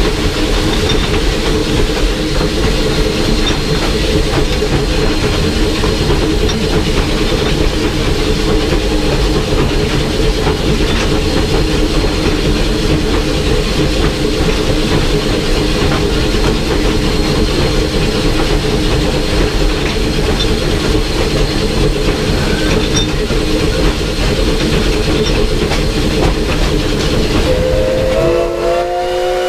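Steam locomotive under way, heard from inside the cab: a steady rumble and clatter of the engine and the wheels on the rails. Near the end the steam whistle opens, its chord sliding up briefly and then holding.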